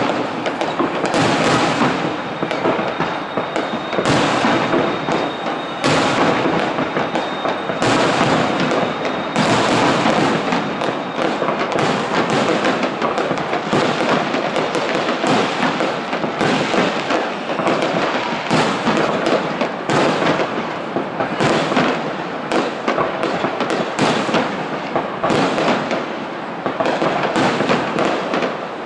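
Aerial firework shells bursting one after another in a dense display, many bangs following close on each other without a pause.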